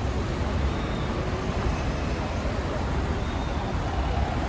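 Street traffic: cars and a van driving past close by, a steady rumble of engines and tyres on the road.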